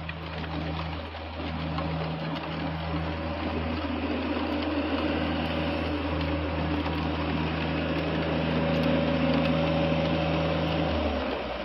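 Heavy rain pouring steadily, with a steady low mechanical hum underneath that cuts off near the end.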